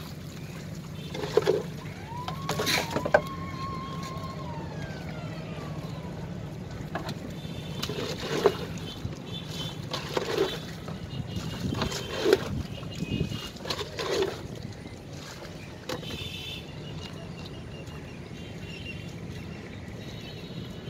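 Water being scooped from the bottom of a wooden boat with a plastic container and poured out, a slosh and splash about every two seconds, over a steady low hum. A short whistle-like tone sounds about two seconds in.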